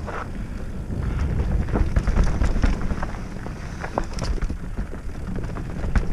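Mountain bike riding fast down a dirt singletrack: a heavy low rumble of wind and ground noise on the bike-mounted microphone, broken by frequent sharp clicks and rattles as the bike goes over roots and rocks.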